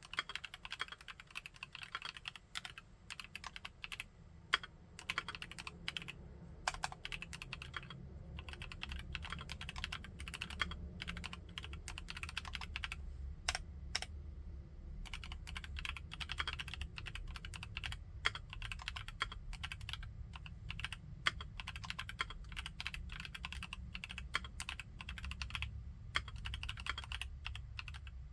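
Mechanical keyboard being typed on in fast, continuous runs of keystrokes. The typing thins to a few separate key presses twice, about three seconds in and again around halfway through.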